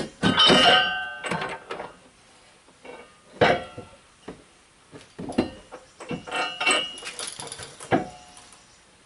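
Steel receiver hitch clanking and scraping against the vehicle's frame and the protruding mounting bolts as it is held up and worked into position, a string of irregular metal knocks that ring briefly, the loudest about half a second in.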